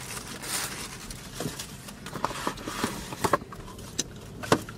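Tissue paper rustling and crinkling as it is pulled out of a paper gift bag, with a series of short sharp crinkles and taps as a small wrapped box is lifted out.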